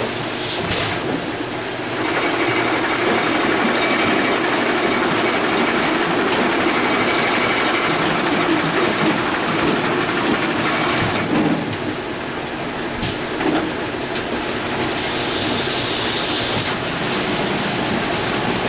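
Six-head automatic net weigh filling machine running: steady mechanical noise that grows louder about two seconds in and eases somewhat past the middle, with a brief hiss near the end.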